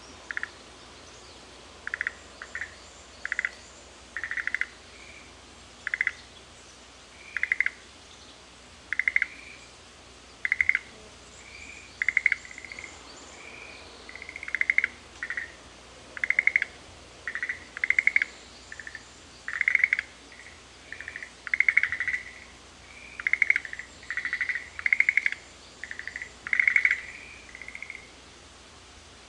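Frogs calling back and forth: short rattling calls made of quick pulses, answered by short whistled notes at about the same pitch, one or two calls a second and growing busier in the second half. A faint steady hiss lies underneath.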